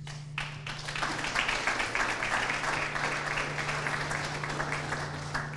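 Audience applauding. The clapping starts about half a second in, is fullest in the middle and dies away near the end.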